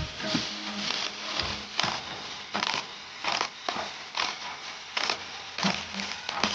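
Irregular scraping and clattering noises, a short burst about every half second, from hands and tools working on parts of an electric motor being taken apart.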